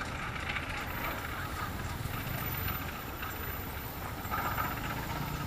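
Diesel-electric locomotive engine running as the locomotive moves off along the track, a steady low rumble.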